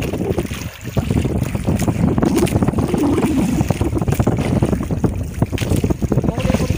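Wind buffeting the microphone aboard a moving motorboat, a steady dense noise heaviest in the low range.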